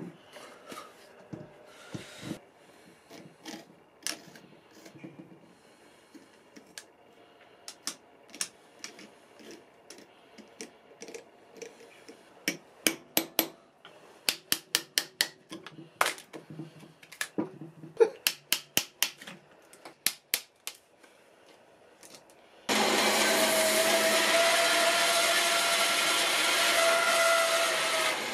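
Bandsaw switched on about two-thirds of the way through, then running steadily with a constant whine; this is the loudest sound. Before that come scattered knocks of a spalted ash blank handled on a metal lathe bed, then a run of sharp clicks and cracks as a hand chisel splits bark off the blank.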